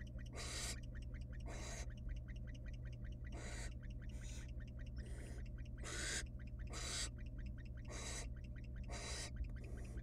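Barn owl nestlings giving their hissing, snore-like food-begging calls, about eight rasping hisses at roughly one a second, while being fed.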